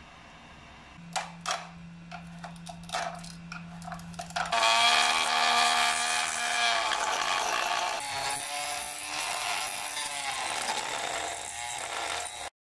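A few light clicks and knocks over a low hum, then a handheld rotary tool with a small cutting disc running at high speed and cutting into a plastic piece, its whine dropping in pitch as the disc bites, easing, and dropping again before it cuts off near the end.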